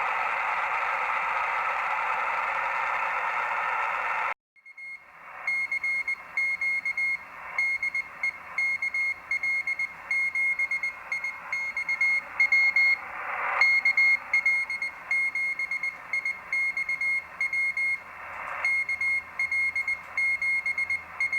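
Morse code (CW) received on a Drake TR-4C shortwave transceiver and played through its speaker. For the first few seconds there is only receiver hiss. Then, after a brief drop-out, a high-pitched tone is keyed on and off in short and long beeps over fainter band noise.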